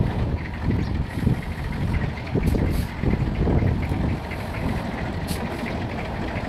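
Heavy diesel road-construction machinery running with a steady, uneven low rumble.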